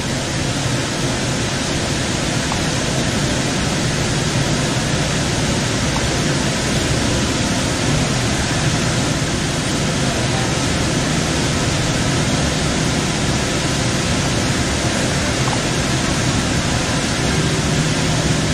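Steady rumble and hiss of a Central Link light rail train running, heard from inside the car. A low steady hum comes up near the end.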